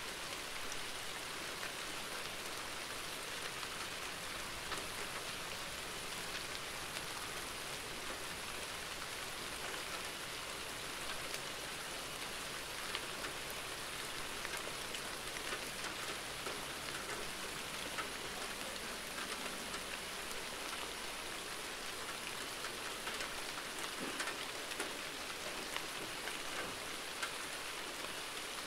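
Steady rain falling: an even hiss with individual drops ticking sharply here and there.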